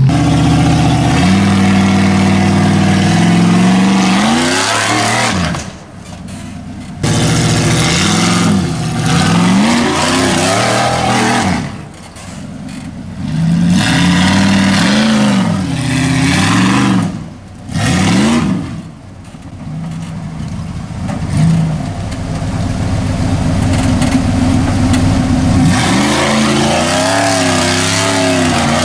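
Side-by-side UTV engine revving hard in repeated bursts under load on a rock climb. The revs climb and fall again and again, easing off briefly about six, twelve and eighteen seconds in.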